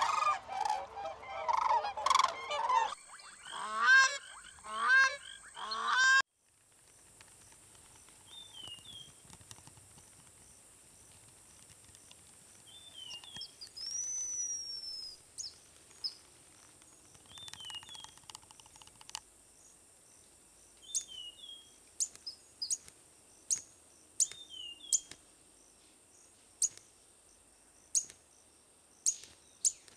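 Birds calling: loud, repeated honking calls for about six seconds, which cut off suddenly. After that come faint short chirps and sharp clicks over a steady high hiss.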